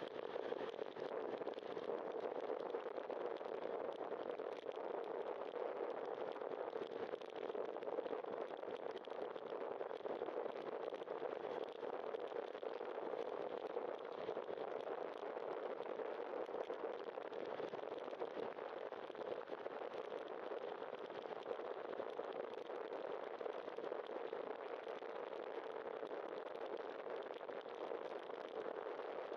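Bicycle rolling on wet asphalt: a steady hiss of tyres on the rain-wet road mixed with the rush of riding.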